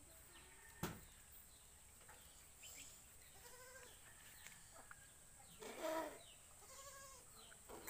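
A few short, faint wavering calls, the loudest about six seconds in, over quiet outdoor background, with one sharp click about a second in.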